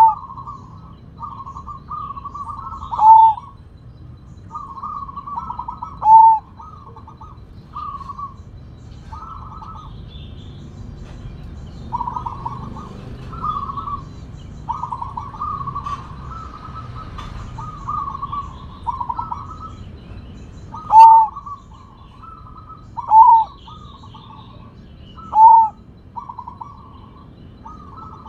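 Zebra dove (perkutut) of the Sumbawa strain singing: repeated phrases of quick, rolling coos, several of them closed by a single loud, drawn-out coo. The loud closing coo comes about six times, with a stretch of only rolling coos in the middle.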